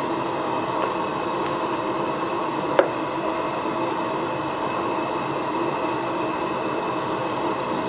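Steady hiss of a pressurised gas lantern and a Coleman camp stove burning, with one short click about three seconds in.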